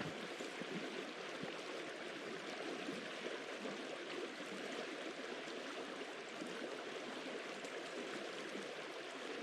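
River water running steadily where the ice opens up, a constant rushing that cuts off suddenly at the end.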